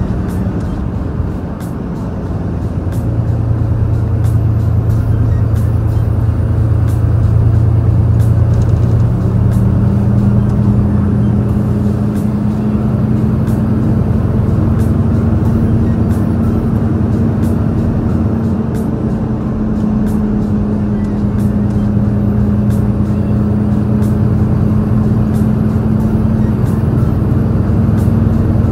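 A large truck's diesel engine pulling hard up a mountain grade, heard from inside the cab with the window slightly open. It is a steady low drone that dips briefly about a second in, then builds again and holds, with a higher note joining partway through.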